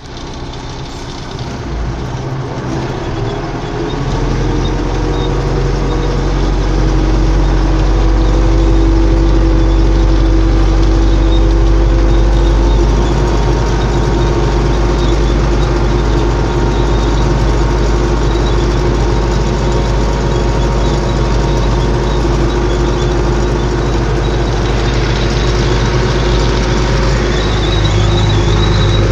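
MTZ-82 tractor's four-cylinder diesel engine running under load while pulling a combination seedbed cultivator, heard from inside the cab. It builds up over the first few seconds, then runs steadily.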